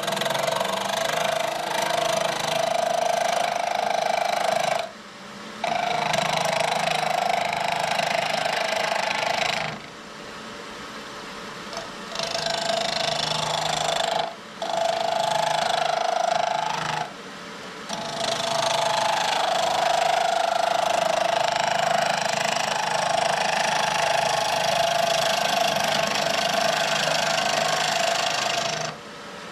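Wood lathe running with a turning tool cutting a cherry burl blank. The cutting noise comes in long stretches with a steady tone underneath, and it breaks off abruptly several times for short pauses.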